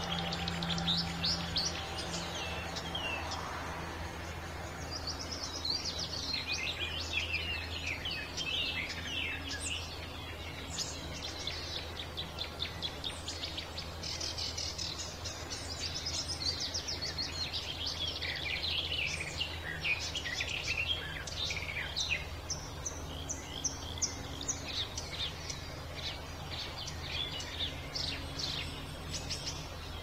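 Sedge warbler singing: long runs of rapid, varied notes, phrase after phrase with brief breaks, over a steady low hum.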